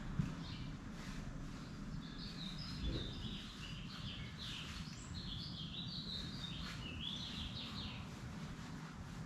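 A small bird singing a run of quick, twittering high chirps for several seconds, over a steady low outdoor rumble.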